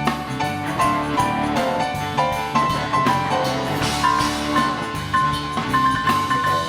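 Live southern rock band playing an instrumental passage with drum kit, electric guitar and keyboards.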